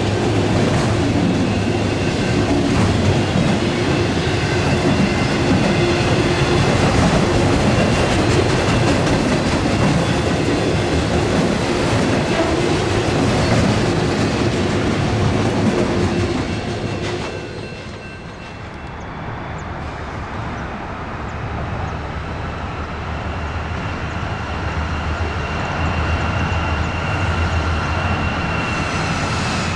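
A train rolling past on the rails with a dense clatter of wheels over the track and a steady tone. About 17 seconds in the clatter drops away, and a quieter, even rumble with a faint high whine follows.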